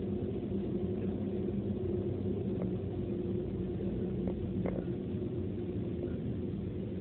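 A car's engine and tyre noise heard from inside the cabin while driving at steady speed: a continuous low hum, with a few faint clicks in the middle.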